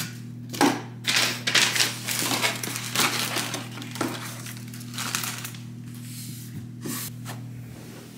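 Plastic wrapping and a cardboard box being handled: crinkling and rustling with small knocks and clicks, busiest in the first half and thinning out, over a steady low hum.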